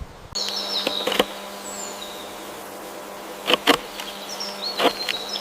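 A steady insect-like buzz starting a moment in, with high thin bird whistles and several sharp clicks, the loudest pair a little past halfway.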